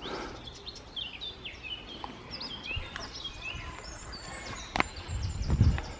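Small woodland birds chirping and singing, many short high calls overlapping. Near the end there is a sharp click and a brief patch of low thumping.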